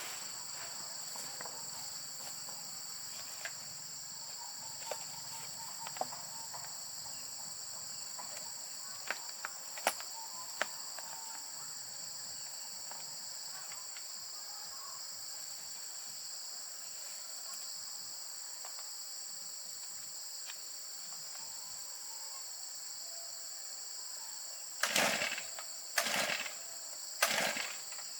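Steady high-pitched chorus of insects, with a few faint clicks and three short, louder noises near the end.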